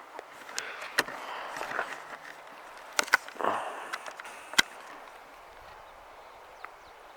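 Footsteps scuffing on a dirt trail, with a few sharp clicks about one, three and four and a half seconds in, settling to a faint steady hiss.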